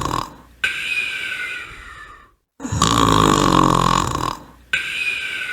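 Cartoon monster snoring in a loop: a low, buzzing snore on the in-breath, then a breathy out-breath that falls in pitch, each repeated twice.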